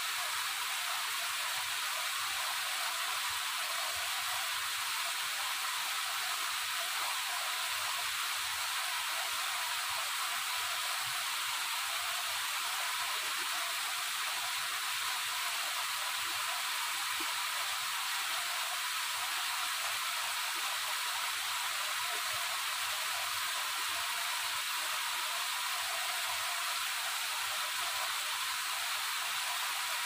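Waterfall: a steady, even rush of falling water, heard mostly as a high hiss with almost no low rumble.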